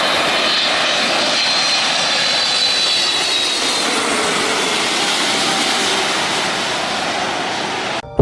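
Airplane engine sound effect: a loud, steady rush of jet noise with a faint high whine. It cuts off abruptly near the end.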